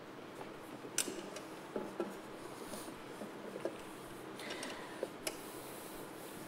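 Scattered light clinks and knocks of cookware being handled: a spatula working dough in a glass mixing bowl and a baking dish being greased, over a faint steady room hum.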